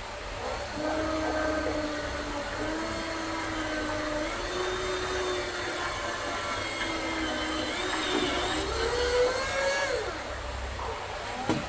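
Cordless drill with a hex socket bit driving a screw that fastens a grounding cable's ring terminal to a solar panel frame. The motor whine wavers in pitch as the trigger and load change, rises near the end as the screw is run home, then stops. A sharp click follows just before the end.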